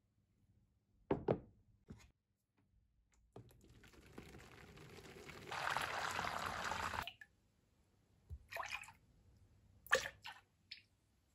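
A plastic tub is set down on a wooden bench with a thunk. Water then pours into it for about three and a half seconds, growing louder and stopping abruptly. A few short splashes and drips follow as a thin stream of cleaning liquid is poured into the water.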